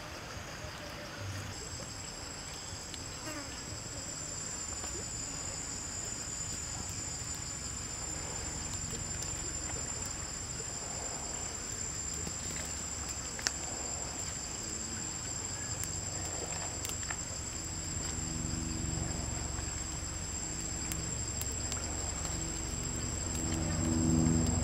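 Insects chirring with one steady high-pitched tone. A single sharp click comes about halfway, and a low hum joins in over the last several seconds.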